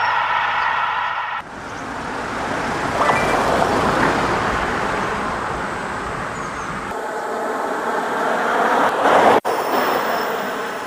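Car on the move heard as a steady rush of road and wind noise, picked up by a microphone held out of the car's window; it sounds a little like a highway. The noise changes abruptly a few times.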